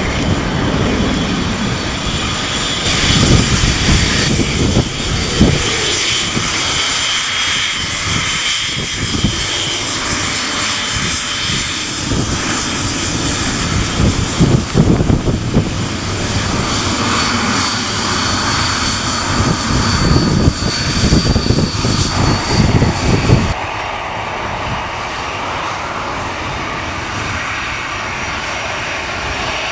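Airliner engines running, with gusty wind buffeting the microphone in irregular low rumbles. About 23 seconds in, the buffeting stops abruptly, leaving a steadier engine sound.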